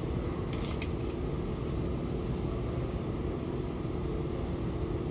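Steady vehicle drone heard from inside, a low rumble under a constant hum, with a few faint clicks just under a second in.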